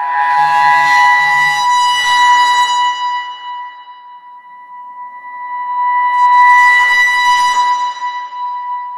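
Eerie sound-design patch from the EERIE 2 Kontakt sample library: a held, high ringing tone with overtones, under two slow swells of airy, noisy shimmer. The swells rise and fade, one at the start and another about six seconds in.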